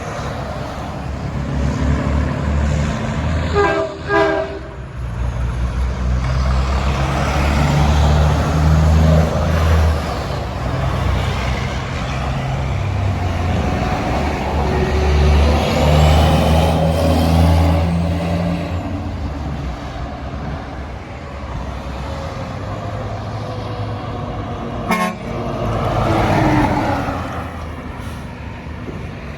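Heavy diesel trucks passing close by with loud engines, and a short air-horn blast about four seconds in and a very brief toot near the end.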